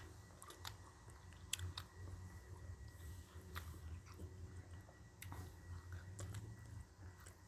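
A person chewing and crunching food close to the microphone, eating spicy grilled-pork salad with raw young eggplant, with sharp crunchy clicks scattered through. A low steady hum runs underneath.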